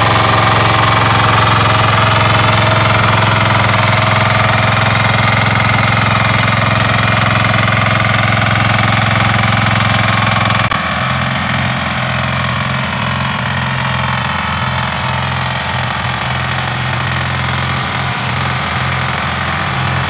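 Engine of a COHO walk-behind rotary tiller running steadily under load while its tines churn the soil. It becomes a little quieter and changes tone about eleven seconds in.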